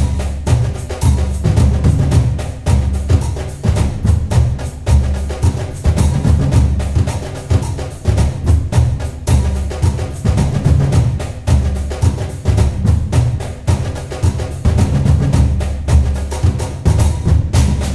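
Music with heavy drums plays loudly, mixed with dense, rapid bangs and crackles from a fireworks display firing continuously.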